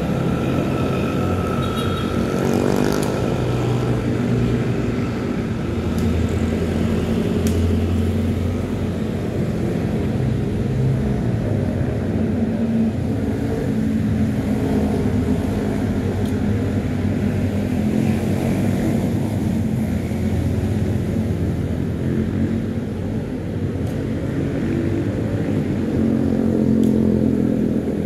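Motor vehicle engine running steadily under way, its pitch shifting now and then, with a rising note about two to three seconds in.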